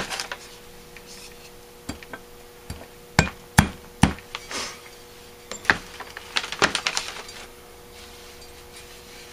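Three sharp, light taps of a ball-peen hammer on the pump-well parts of a Rochester B one-barrel carburetor's cast body, seating the small T retainer over the new pump spring. Later comes a quicker run of small metallic clicks from the parts being handled.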